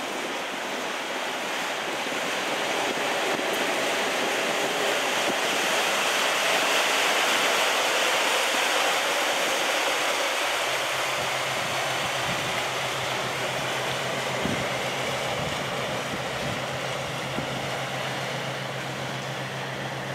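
Inland motor cargo ship passing close by: the rush of water along its hull and wake swells and then eases. About halfway through, the steady low hum of its engine comes in.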